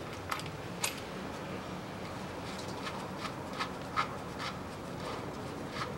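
Light metallic clicks and ticks from a ratchet with a 24 mm socket loosening the fill-and-level plug on a Mitsubishi Pajero's transfer case, then the plug being turned out by hand; a cluster of ticks about three a second comes in the middle. A faint steady low hum runs underneath.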